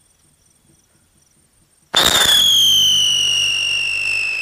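Whistling wheel ground-spinner firework bursting into action about two seconds in: one loud, shrill whistle that slowly falls in pitch over a hiss of spraying sparks.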